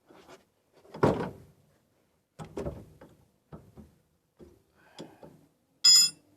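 Wrench at work on the 19 mm nut of a steering tie rod end: a string of irregular clunks and knocks, the loudest about a second in, then a sharp ringing metallic clink near the end.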